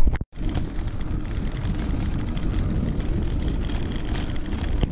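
Mountain bike riding on a rutted dirt road: steady rumble of the tyres and frame, with wind buffeting the camera's microphone. The sound cuts out for a moment just after the start.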